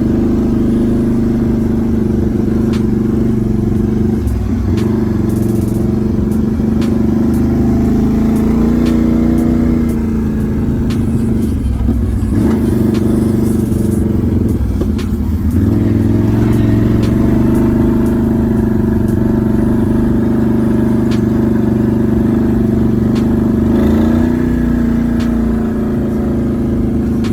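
Can-Am Renegade 1000R XMR ATV's V-twin engine running under way, its pitch dropping and climbing several times as the throttle is let off and opened again.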